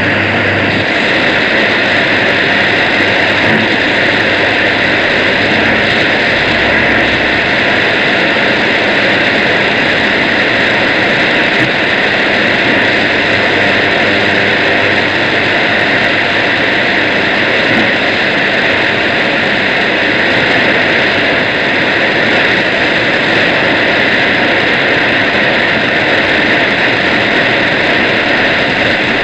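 Steady, loud hiss of shortwave radio noise on the receiver, with no programme audible; the signal has dropped out suddenly just before.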